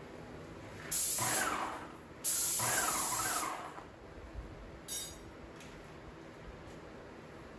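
Graco Magnum X5 airless paint sprayer's gun spraying paint in two hissing bursts about a second long each, then a brief third burst.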